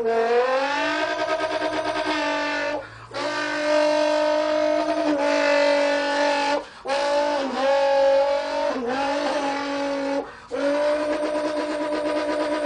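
A boy imitating with his voice a BMW 325is engine spinning donuts: long held engine notes that dip and waver in pitch, broken three times by short pauses for breath.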